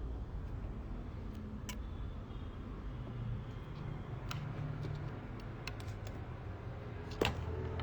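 Scattered small sharp clicks and ticks of a screwdriver, tweezers and tiny screws against an iPhone 6's parts during disassembly, the loudest near the end, over a steady low hum.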